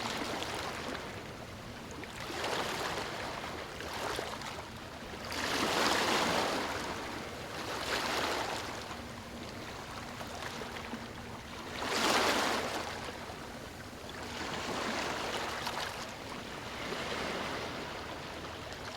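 Ocean waves breaking and washing in, coming as repeated swells of surf, the two loudest about six and twelve seconds in.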